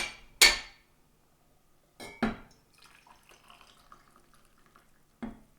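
Handling of a 3D-printed PLA tea canister with a TPU-sealed lid: a loud sharp pop about half a second in, another sharp knock about two seconds in, faint rustling and scraping, then a last short knock near the end.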